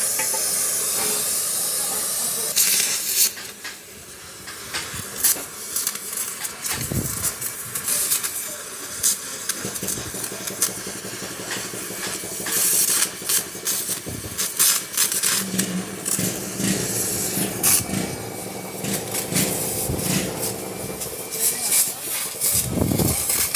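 Gas welding torch flame hissing steadily against an aluminium alloy wheel rim while aluminium filler rod is welded onto the rim lip, loudest in the first couple of seconds. Scattered sharp clicks and a few dull knocks run through it.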